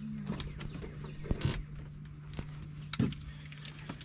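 Clicks and knocks of a fishing rod and reel being worked as a fish is reeled in, over a steady low hum; the loudest knocks come about a second and a half in and at about three seconds.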